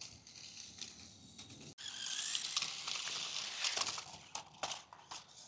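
Toy RC climbing car driving and dragging a jointed plastic RC snake behind it: a rattling, clicking clatter of wheels and toy segments on the floor. It drops out for a split second about two seconds in, then comes back louder for a couple of seconds before easing off.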